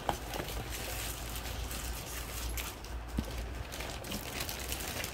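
Faint rustling of a paper sheet and packaging being handled inside an opened box, with a couple of soft knocks.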